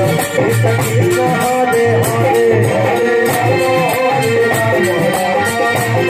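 Live kirtan music in a Holi folk tune: a melody line over steady drum beats and a bright, even jingling rhythm, like a shaker or small cymbals.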